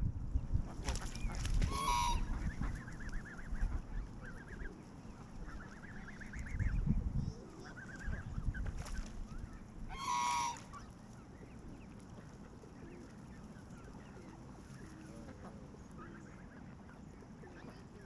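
Canada geese honking: two loud honks about two and ten seconds in, with softer calls between them in the first half. Low rumbles near the start and about seven seconds in are the loudest sounds.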